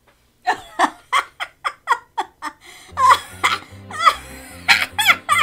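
A person laughing in a quick string of short bursts, then music with a stepping bass line comes in about three seconds in.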